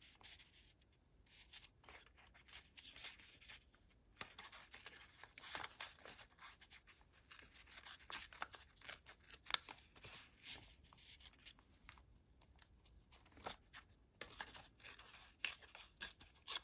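Small piece of gel-printed paper being torn by hand along its edges: quiet, intermittent short rips and paper rustles.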